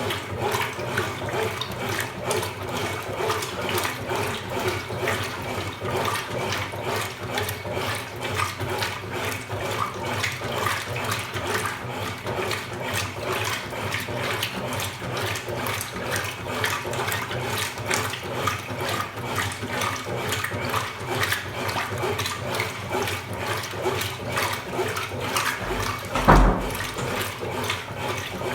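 Consul Supercargo 8 kg (CWL08C) top-loading washing machine running its wash, with water churning and sloshing in the tub over a low motor hum. Near the end there is a single thump.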